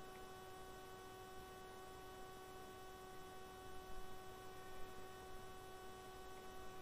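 Faint steady electrical hum: one constant pitched tone with overtones over low background hiss.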